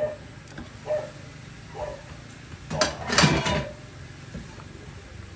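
A stainless steel cooking-pot lid clattering against the pot as it is lifted off with an oven mitt, loudest about three seconds in. Before it come a few short yelps.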